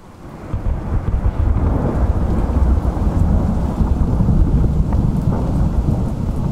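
A loud, steady low rumble with a hiss above it, swelling in over about the first second and then holding.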